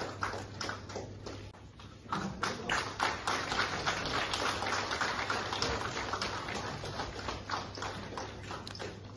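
Applause: many people clapping in a crowded round that swells about two seconds in, then slowly fades.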